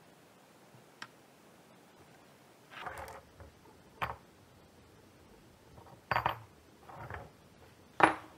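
Steel hex nuts being set down on wooden boards and knocking against each other, along with a bar of nuts welded together being put down on the wood. It comes as a scattering of sharp metal clicks and clacks, about six in all, with the loudest near the end.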